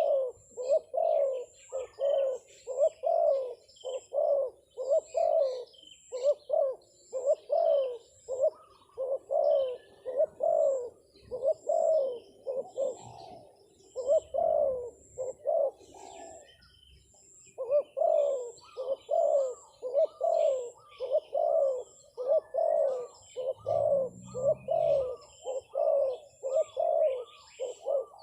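Spotted dove (terkukur) cooing in a steady run of short, rising-and-falling notes, about two a second, giving the coaxing ('mujuk') call. The run pauses briefly about 16 seconds in. Small birds or insects chirp at a high pitch throughout.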